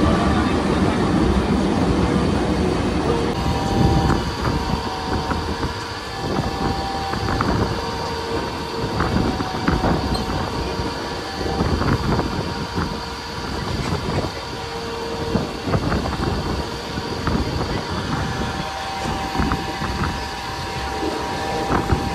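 Mumbai suburban local train running on the rails: a steady rumble with irregular knocks from the wheels and a few held humming tones. The sound changes abruptly about three and a half seconds in.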